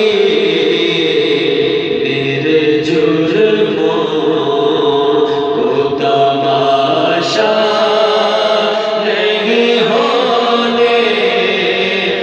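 Two men singing an Urdu devotional kalam (naat) without instruments, in long held notes that bend in pitch; partway through, the lead passes from one voice to the other.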